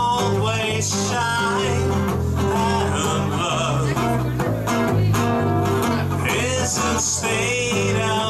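Live acoustic-style band music: a man sings into a microphone over strummed acoustic guitar and an electric guitar, with sustained low notes underneath.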